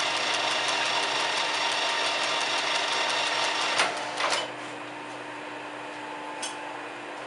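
A metal lathe runs with a connecting rod bolted off-centre on its faceplate, giving a steady whir with a regular rapid ticking. About four seconds in it is switched off with a few sharp clacks, and the noise drops as it runs down.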